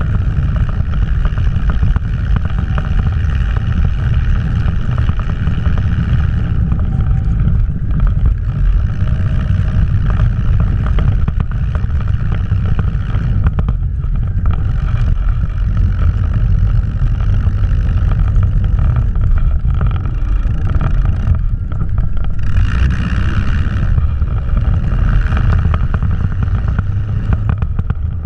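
1971 Thiokol snowcat's engine running steadily under way through snow, heard from on board the machine as a continuous loud low drone.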